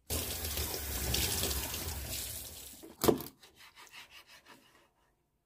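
Tap water running into a stainless steel sink over a gutted fish being rinsed, stopping about three seconds in with one sharp knock. Then faint light taps of a knife cutting fish on a wooden board.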